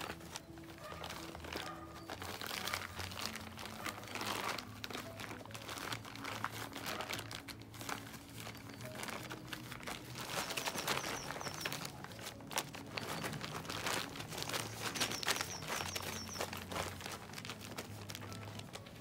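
Background music with steady low tones, under crinkling and rustling noises throughout. Two short runs of high chirping notes come about halfway through and again a few seconds later.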